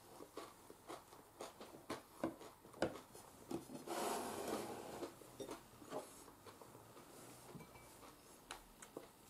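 Faint eating and tableware sounds: scattered small clicks and taps, with a brief rustle about four seconds in.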